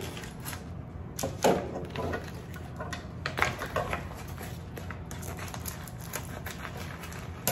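Scattered light clicks and knocks of kitchen items being handled and set down on a counter, with a few louder knocks about a second and a half and three and a half seconds in.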